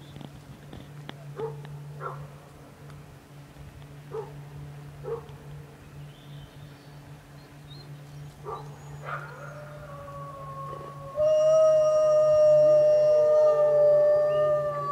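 Wolves calling: a few short yips in the first half, then long howls that join into a chorus at several pitches, loud from about eleven seconds in.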